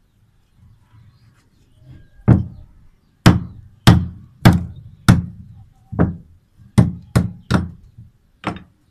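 A hand tool knocking on brick during bricklaying: about ten sharp knocks in a row, starting about two seconds in, at one to two knocks a second.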